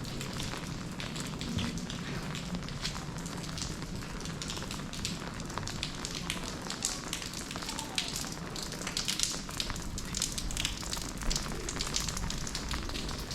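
Rain falling close by, with many irregular sharp drop ticks over a steady hiss.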